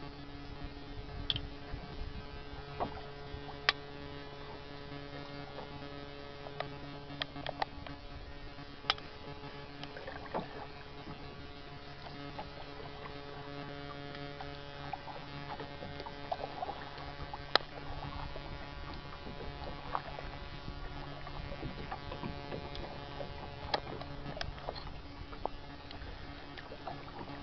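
Kayak being paddled: irregular small splashes, drips and clicks of the paddle and water, over a steady low electrical hum.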